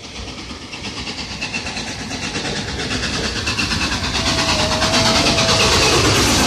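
LNER A4 Pacific steam locomotive 60009 'Union of South Africa' approaching with its train, a rapid, even pulsing from it growing steadily louder until it draws level near the end. A steady tone sounds for under two seconds in the middle.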